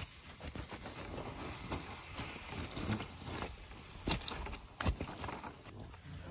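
Water pouring from a bottle onto wet ashes in a stone fire ring, dousing the campfire: a steady splashing with a couple of louder splats about four and five seconds in. It eases off shortly before the end.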